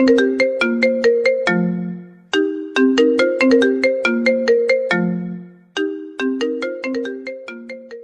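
Mobile phone ringtone melody: a short tune of quick notes, each with a sharp start that fades, looping about every three and a half seconds and dying away near the end.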